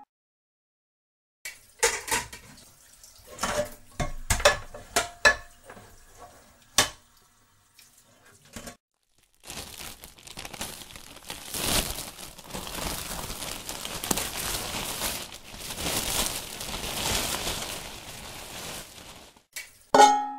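A run of sharp clinks and clatters like dishes being handled. Then, for about ten seconds, a steady rattling rush like dry kibble poured from a bag into a bowl. A short, loud pitched sound comes just at the end.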